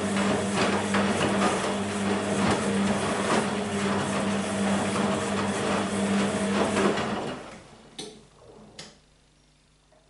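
BEKO WMB 51441 front-loading washing machine tumbling a wash load: the drum motor hums steadily while wet laundry and water slosh and clatter in the turning drum. About seven seconds in, the motor stops and the drum winds down to rest, which is the pause of the wash rhythm. Two sharp clicks follow.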